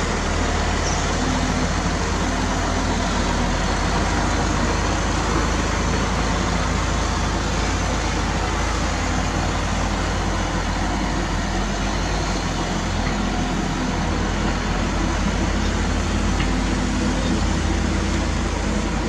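Heavy diesel engine of earthmoving machinery running steadily, with a constant low hum and no change in pitch.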